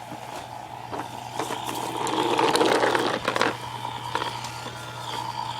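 Craftsman toy lawnmower being pushed, a fast plastic clicking and rattling, louder for about a second and a half in the middle.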